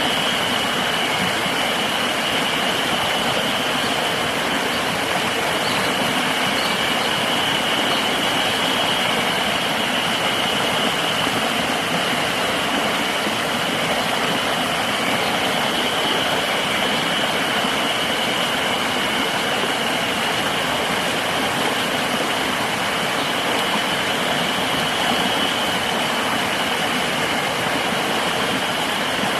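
Steady rushing river water, with a continuous high-pitched insect drone over it.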